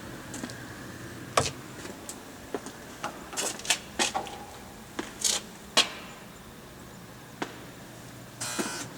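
Irregular sharp clicks and knocks, a dozen or so, with a brief rustle near the end, over a faint steady low hum.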